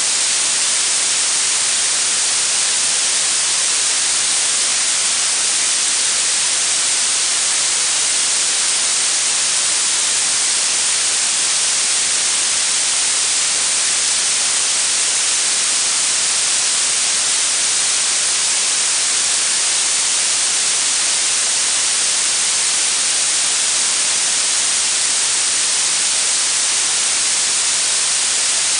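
Electronically generated blue noise: a steady, even hiss that is strongest in the treble and thin in the bass.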